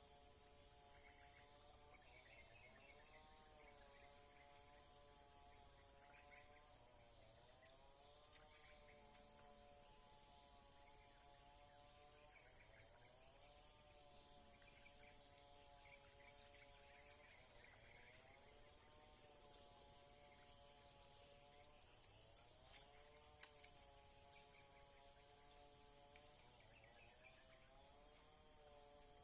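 Faint, steady, high-pitched insect chorus of crickets, under a quieter pitched hum that rises and falls every few seconds. A few sharp clicks come about three seconds in and twice near the end.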